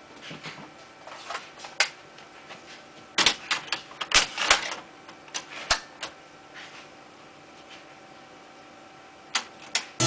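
Plastic clicks and clacks from a hand pressing the buttons and handling the controls of a Sony hi-fi stack. There is a quick run of clicks in the middle and two more just before the end.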